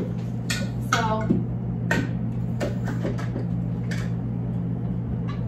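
Cups and containers being picked up and set down on a cupboard shelf: a scatter of short, light knocks and clicks at irregular intervals, over a steady low hum.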